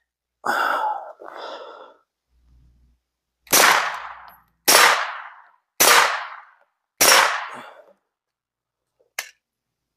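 Four shots from a suppressed Glock 19 9mm pistol, each with a short fading tail. They come about a second apart, starting about three and a half seconds in. A faint click follows near the end.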